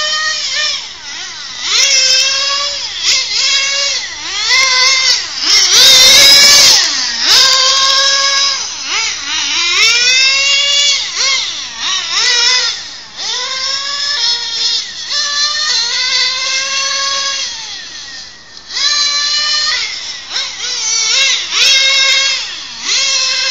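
Kyosho FW-05RR nitro touring car's small glow engine revving hard, a high-pitched whine that climbs on each burst of throttle and drops away when the throttle is lifted, over and over. A loud rush about six seconds in, and a brief lull near the end.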